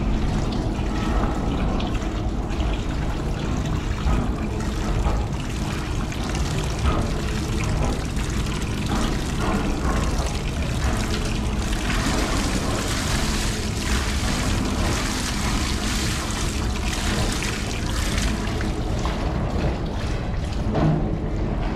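Water splashing and pouring off metal pots as they are dunked into a washing tank and lifted out, with water streaming back into the tank.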